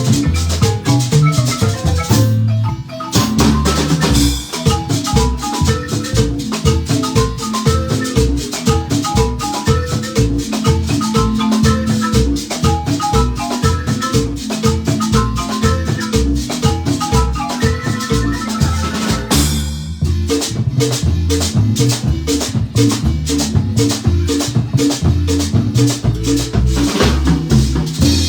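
Marimba ensemble playing a lively dance tune: quick mallet notes over a bass line, with percussion keeping a steady beat. The music breaks off briefly about three seconds in and again about twenty seconds in.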